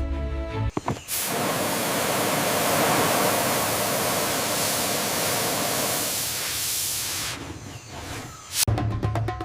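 A steady rushing hiss that cuts in about a second in and fades out shortly before the end, with background music before and after it.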